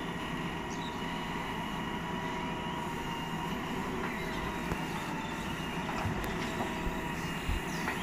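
JCB 4DX backhoe loader's diesel engine running under load with a steady hydraulic whine as the backhoe digs, swings and dumps soil into a tipper truck. A few low thumps near the end.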